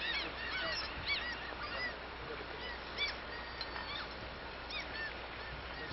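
A flock of birds calling: short, arching calls, many at once at first, then thinning out to scattered single calls.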